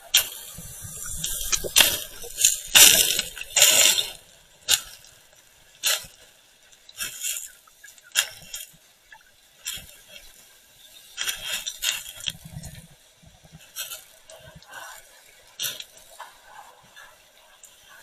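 Underwater sound through an action camera's waterproof housing in pebbly shallows: irregular rattling and clinking bursts, like shifting pebbles and water moving against the housing, coming every second or so. They are loudest in the first few seconds.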